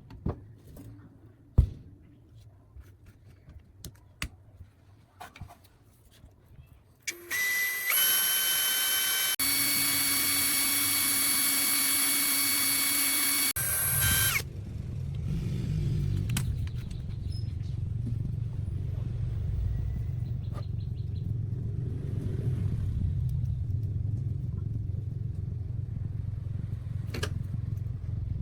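A few clicks and knocks, then an electric power tool motor switched on, whining steadily for about six seconds before it stops. A steady low rumble takes over and runs on.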